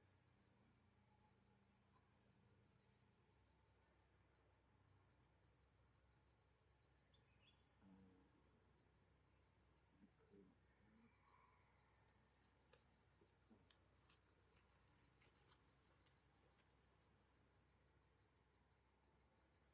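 Faint insect chirping: a high-pitched, evenly pulsed chirp repeating about four to five times a second without a break, over a thin steady high whine.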